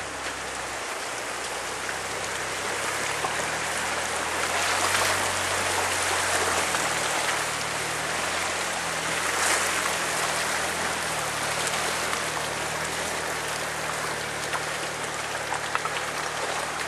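Loud, steady rush of a fast-flowing rocky creek, its white water hissing and swelling now and then, with the Jeep's engine running low underneath from a few seconds in.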